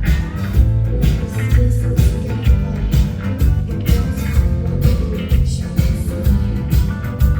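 A live rock band playing a song: electric guitars and bass over a steady drum beat.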